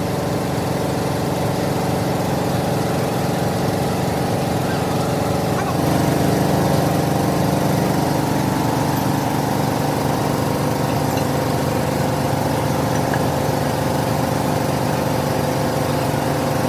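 A heavy machine-shop machine running with a steady motor drone. About six seconds in, its note changes and it gets a little louder.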